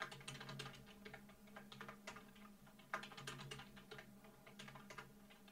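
Faint keystrokes on a computer keyboard in two quick runs of clicks with a short pause between them: a password typed at a prompt and then retyped.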